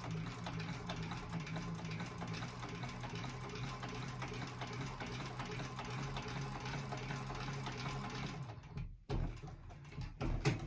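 Industrial sewing machine running steadily while topstitching along the edge of a vinyl flap. It stops about nine seconds in, then runs a few short starts near the end.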